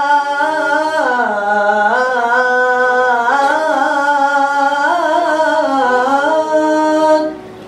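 A boy chanting the adhan, the Islamic call to prayer, into a handheld microphone: one long melodic phrase with gliding, ornamented pitch that stops about seven seconds in.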